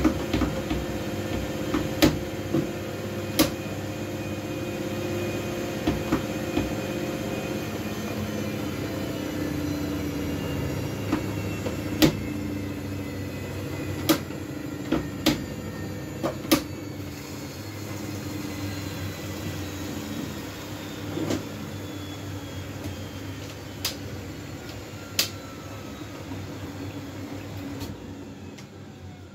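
Miele W433S washing machine with a load of stuffed toys and pillows, its spin slowing down: the motor whine falls steadily in pitch and fades. About a dozen sharp clicks and knocks come at irregular moments.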